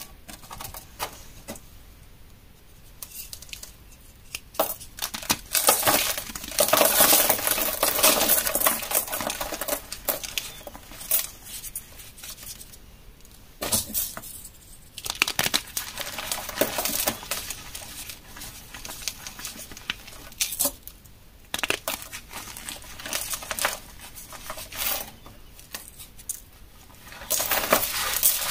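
Moulded blocks of dyed gym chalk being snapped and crushed by hand: crisp snaps and gritty crunching as the pieces crumble to powder, densest from about six to ten seconds in and again near the end.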